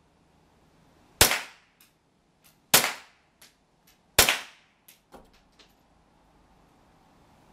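Ruger 10/22 semi-automatic .22 rimfire rifle fired three times, about a second and a half apart, each shot a sharp crack that dies away quickly. Several much fainter cracks fall between and after the shots.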